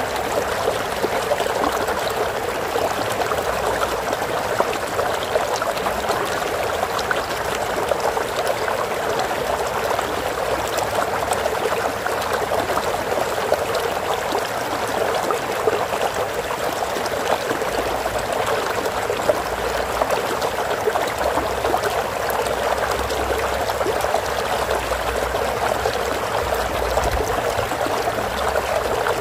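Water flowing steadily over stones in a small stream, a continuous babbling trickle.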